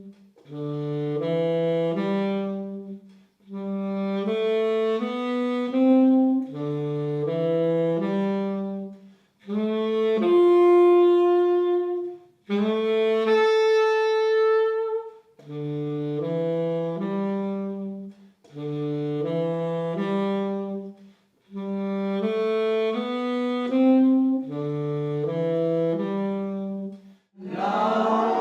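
Saxophone playing a short phrase of stepped notes over and over, each phrase about three seconds long with brief gaps between, and one long held note around the middle.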